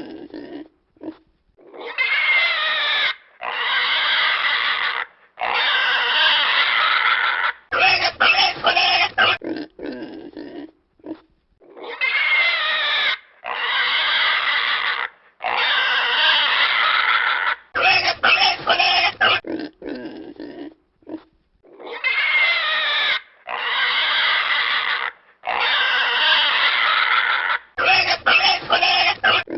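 A pig squealing: three long, wavering squeals in a row, then a quick run of short squeaky grunts. The same sequence repeats three times, as a looped sound effect.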